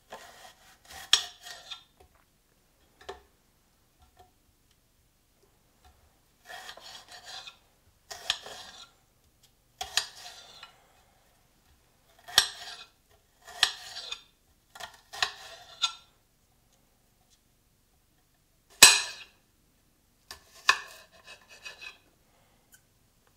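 Knife chopping elephant garlic cloves on a hard black plate: short bursts of cutting strokes with pauses between, about nine in all, the blade knocking on the plate. The loudest is a sharp knock near the end.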